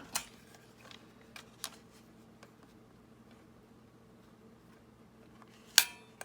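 A few light handling clicks of paper and card, then one sharp snap of a stapler near the end as a staple is driven in.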